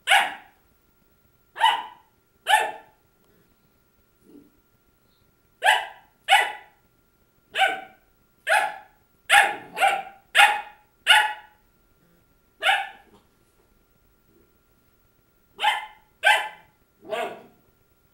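Labradoodle puppy barking at her own reflection in a glass cabinet door: about fifteen sharp single barks, some in quick runs of two to four, broken by pauses of a second or more.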